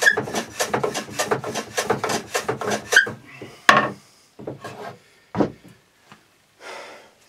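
Old Stanley bench plane with a 45-degree frog shooting the end grain of a rimu board on a shooting board, taking very fine shavings: a rapid run of short rasping strokes that stops about three seconds in. After that, a sharp knock and a few thumps and rubs of wood on the bench.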